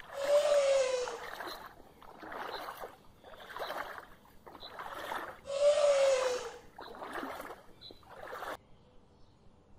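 Water splashing in a run of separate bursts about a second apart, as a young elephant wades and thrashes in a shallow river. The two loudest bursts each carry a short falling tone, and the splashing stops abruptly near the end.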